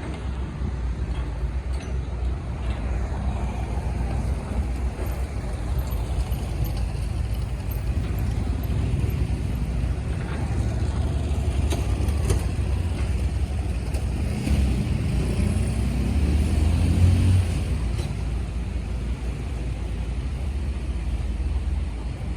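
Diesel engine of a heavy earthmoving machine running steadily with a low rumble. Past the middle it revs up, the pitch rising, for about three seconds, then settles back.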